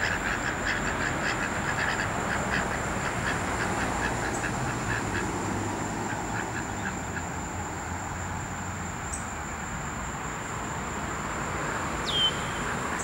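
Ducks quacking in quick runs of short calls, thinning out about halfway through. A steady high-pitched whine runs underneath, and one sharp, falling bird chirp comes near the end.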